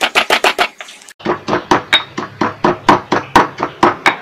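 Granite pestle pounding chillies, garlic and salt in a stone mortar (lesung batu): quick, regular strikes, a short break a little under a second in, then steady strikes at about four a second, grinding the sambal ingredients down to a paste.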